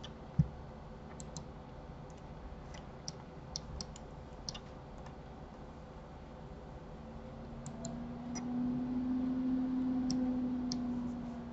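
Computer mouse clicking, scattered single clicks at irregular intervals, with one dull thump about half a second in and a low steady hum rising in from about eight seconds.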